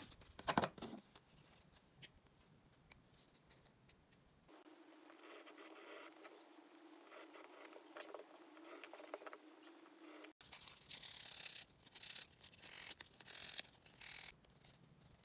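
Leather being worked with hand tools: a few sharp clicks of a knife in the first second, then quiet scratching of a pointed tool on the leather, and from about ten seconds in, louder rasping strokes of sandpaper rubbed along the leather.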